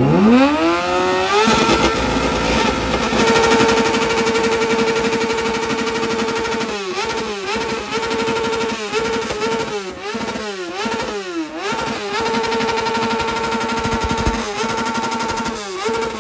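Kawasaki Ninja sportbike revved while standing still. The engine climbs sharply to high revs at the start and is held there for a few seconds. It is then blipped down and up again and again, held high once more, and blipped a few more times.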